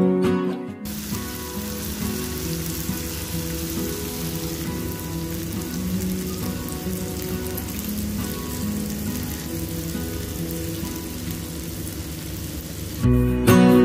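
Onion, garlic and diced tomatoes sautéing in oil in a frying pan: a steady sizzle, with faint acoustic guitar music underneath. Louder guitar music plays for about the first second and comes back near the end.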